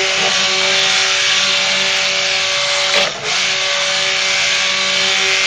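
Handheld stick blender running steadily on high, submerged and blending oils and lye into soap batter. The sound dips briefly about three seconds in.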